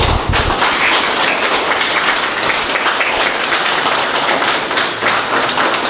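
A small audience applauding, a dense steady patter of hand claps.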